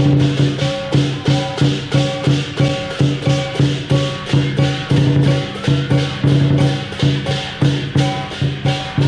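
Lion dance percussion band playing: a large drum beaten with crashing cymbals and a ringing gong, about three to four strokes a second in a steady driving rhythm.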